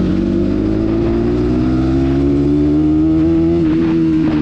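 Bajaj Pulsar NS200's single-cylinder engine pulling gently in traffic, its note rising steadily for about three seconds and then easing off near the end.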